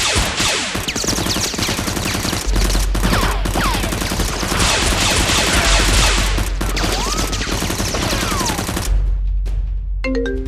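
Rapid, continuous machine-gun fire sound effects, a dense run of shots over a music track with a pulsing deep bass, cutting off suddenly about nine seconds in. Near the end a marimba-like ringtone melody starts.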